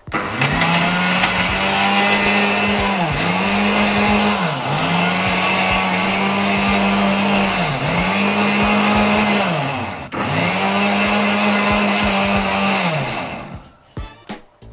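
Indian mixer grinder (mixie) with a stainless steel jar powdering sugar with cardamom pods. The motor runs in five short spells, its whine sagging briefly between each and stopping once about ten seconds in. It winds down near the end.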